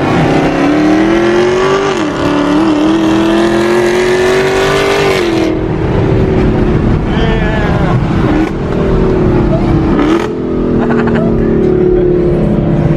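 Dodge Charger Hellcat's supercharged V8 heard from inside the cabin under hard acceleration, its note climbing steadily with a brief dip at a gear change about two seconds in. About five and a half seconds in the car eases off and the note settles and slowly falls, with a couple of short dips later on.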